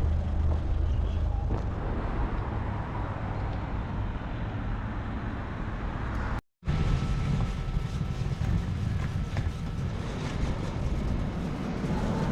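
Road traffic going by, a steady rumble of vehicles with an engine's low hum for the first second or so. The sound drops out for a moment about halfway through.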